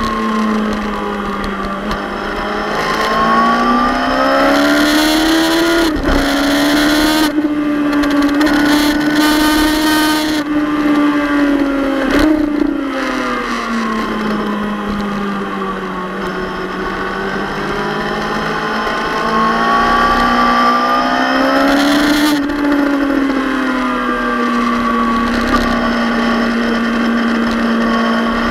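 Suzuki GSX-R600 K7 inline-four sport bike engine heard onboard at high revs. Its pitch rises and falls with the throttle and changes abruptly a few times, over steady wind rush.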